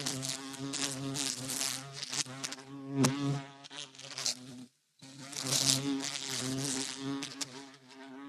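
A bumblebee buzzing in flight: a low, wavering hum that swells and fades. It breaks off abruptly for a moment about halfway through, then starts again.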